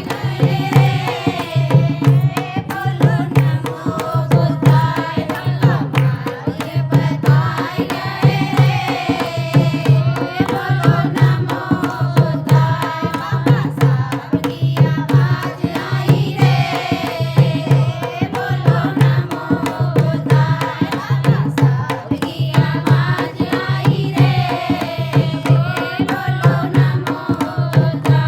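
A Bhim geet devotional song: a sung melody over a steady, even hand-drum beat.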